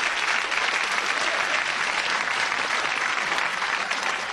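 Studio audience applauding after a joke's punchline: dense, steady clapping that eases slightly near the end.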